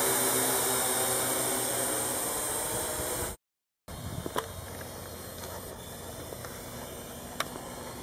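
Parrot AR.Drone 2.0 quadcopter's rotors whirring close by: a steady buzzing hiss that slowly fades, then breaks off suddenly a little over three seconds in. The rest is a much fainter hiss and low hum from the drone flying far off, with a couple of light clicks.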